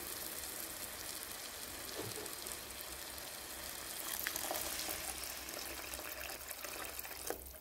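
Water poured in a steady stream into a pan of simmering berbere meat stew, splashing into the sauce; the pour stops near the end.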